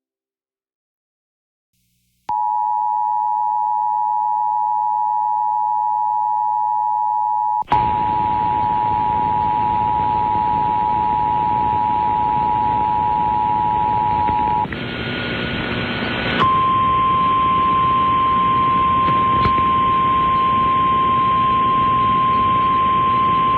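Emergency Alert System attention signal: the harsh two-tone EAS alarm, steady, starting about two seconds in, with radio static joining it about eight seconds in. About sixteen seconds in it gives way to the single-tone 1050 Hz NOAA Weather Radio warning alarm, held steady over static.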